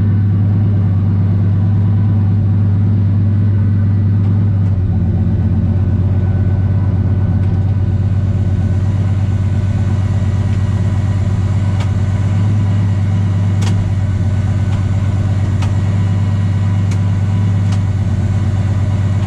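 Turbocharged 5.3 LS V8 in a 1964 Chevelle idling steadily at an even low pitch, run after its bell housing was reseated flush to cure a ticking. A couple of faint clicks sound past the middle.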